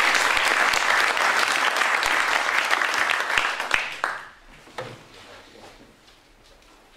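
A small group of people applauding, many hands clapping at once; the applause dies away about four seconds in.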